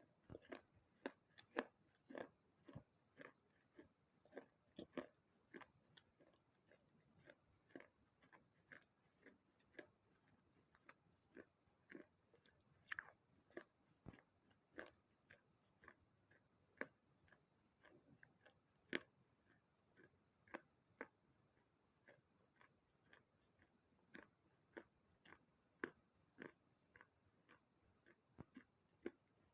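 Close-up chewing and crunching of pieces of a baked clay pot and saucer: a steady run of sharp crunches, about one or two a second.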